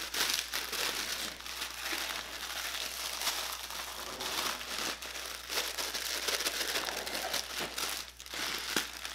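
A sleeve of graham crackers being crushed by hand inside its wrapper: continuous crinkling of the packaging and crunching of the crackers, with a brief lull about eight seconds in.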